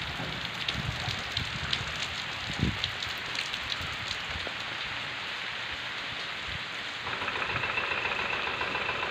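Steady rain falling, with scattered ticks of single drops. Near the end a faint steady engine hum joins in.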